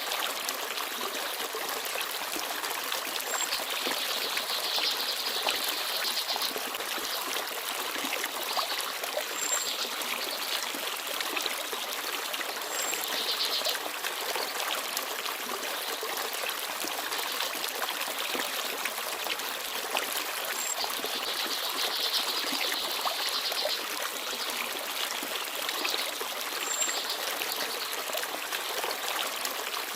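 Forest stream babbling and trickling steadily. A small bird gives a few short, high chirps now and then.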